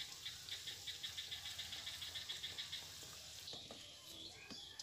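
Nimki deep-frying slowly in a karai of oil over a low flame, a faint steady sizzle. Over it runs an even train of short high chirps or clicks, about six or seven a second, that fades after about three seconds.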